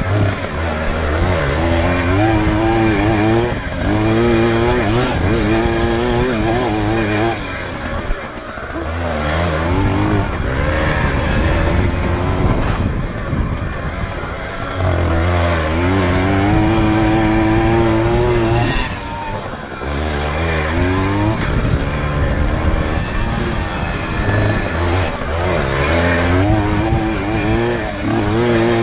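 KTM 50 two-stroke motocross bike engine revving hard under throttle, its pitch climbing and falling again and again. It backs off for a moment about 8, 14 and 20 seconds in.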